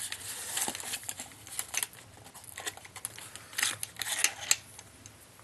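Box of PMC Bronze .50 BMG cartridges being opened by hand: scattered clicks, scrapes and rustles of the cardboard box and the rounds inside, with a few louder rasping scrapes in the second half.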